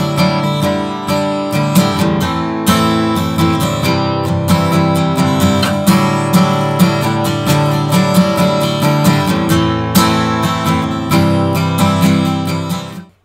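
Martin DSS-17 steel-string acoustic guitar strummed in chords, strung with brand-new light-gauge Martin Retro strings. The playing cuts off near the end.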